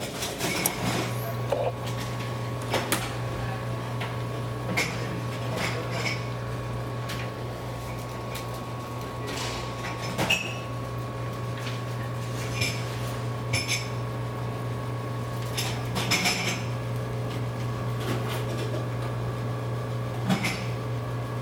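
Coffee machine running with a steady low hum that starts about a second in, with scattered clinks and knocks of handling throughout.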